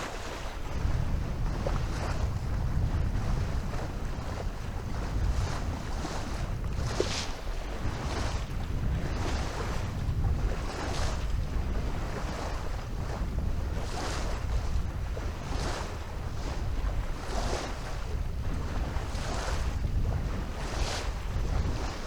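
Water rushing and splashing along the hull of a Maxi 95 sailboat under sail, with a surge of spray about every second as she moves through the waves. A steady low rumble of wind buffets the microphone throughout.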